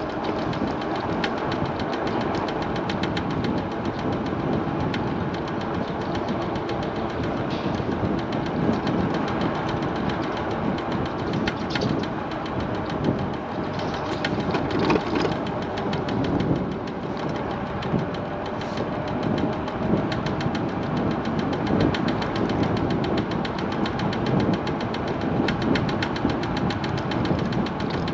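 MiniPro Mi716 electric scooter riding along, with a rapid, steady knocking from the front wheel, where something is striking under the front fender.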